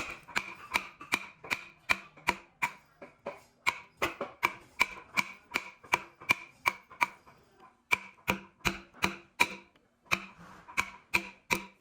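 Rapid, regular hammer blows in wood joinery, about three a second, each with a short ringing tone. The blows pause briefly a few times.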